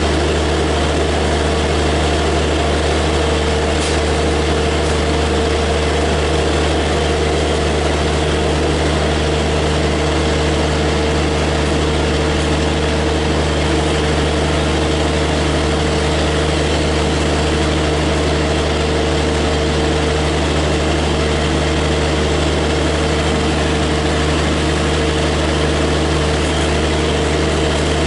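WAP7 three-phase electric locomotive standing at a halt, giving a steady low hum and growl with a constant mid-pitched tone held over it.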